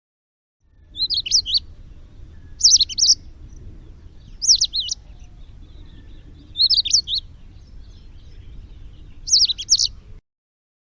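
A bird singing a short, high, warbling phrase five times, about every two seconds, over a faint low rumble.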